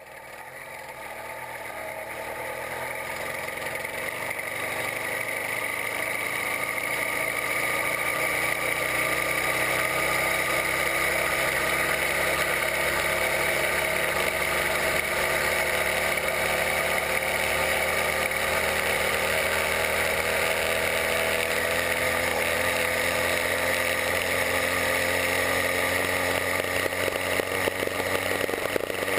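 A 66/80cc Chinese two-stroke bicycle engine kit running under way. Its pitch climbs and it grows louder over the first several seconds as it picks up speed, then it holds a steady buzz.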